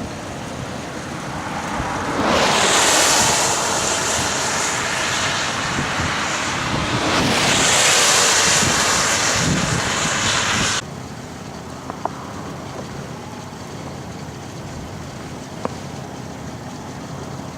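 Snowstorm wind rushing in gusts, loud for several seconds and then dropping off suddenly to a quieter steady hiss, with two faint clicks near the end.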